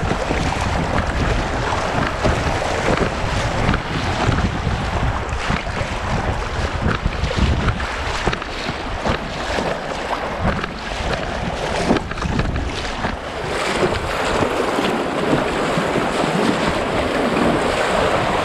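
Wind buffeting the microphone over moving river water splashing around a paddled inflatable kayak, with irregular short splashes.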